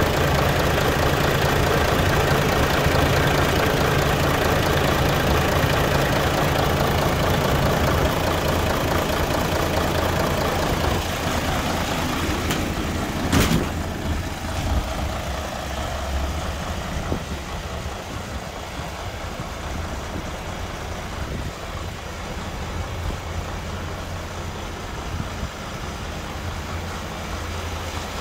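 Mercedes-Benz Actros 4140 tipper's V6 diesel engine idling steadily. It is louder for the first ten seconds or so, then quieter, with a single sharp knock about thirteen seconds in.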